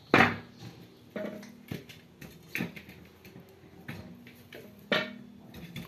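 Pieces of head meat being dropped and pushed by hand into a large aluminium pot, knocking and clattering against the metal. One sharp knock right at the start is the loudest, followed by about four lighter knocks spread through the rest.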